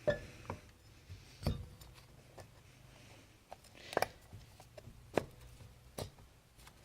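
Scattered light knocks and clicks, about six of them at irregular intervals, as a lubed molded piston is worked into a 700R4/4L60E transmission input drum.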